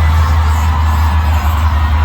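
A deep, steady rumble with music played loudly over an arena sound system.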